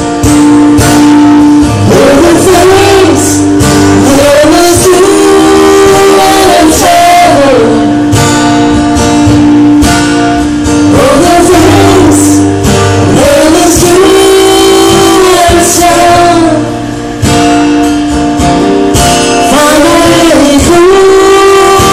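A man singing a song live to his own strummed acoustic guitar, in phrases of a few seconds with long held notes.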